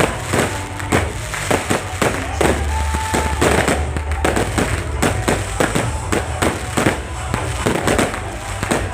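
Many fireworks going off at once: a dense run of bangs and crackles, several a second, over a deep rumble.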